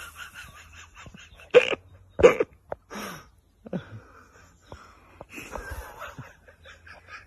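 A dog barking: two short, loud barks about a second and a half and two seconds in.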